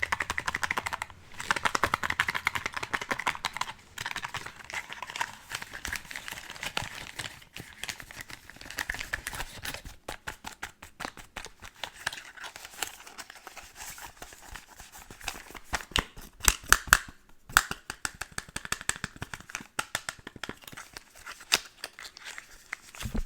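Plastic and paper packaging of skincare products being crinkled and handled close to the microphone, a crackling run of many small clicks. About two thirds of the way through come a few louder sharp clicks or taps.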